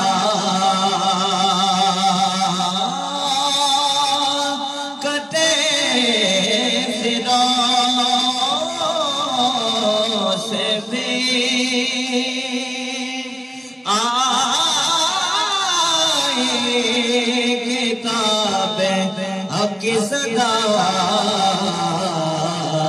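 A man singing an Urdu devotional kalam into a microphone, in long drawn-out held notes with a wavering vibrato, the melody rising and falling.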